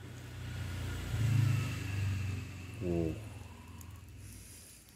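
Low engine rumble of a passing vehicle that swells about a second in and then fades away, with a brief voice sound about three seconds in.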